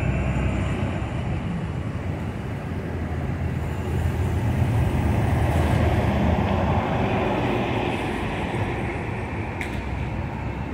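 Street traffic with city bus engines running and passing; an articulated bus passes close, its engine and tyre noise swelling to the loudest point about halfway through, then fading.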